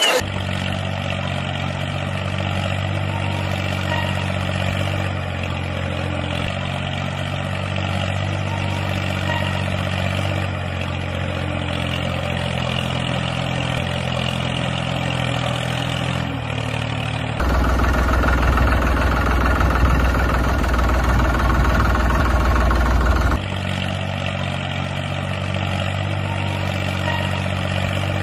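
An engine running steadily at an even pitch, with a louder, rougher stretch of about six seconds past the middle that starts and stops abruptly.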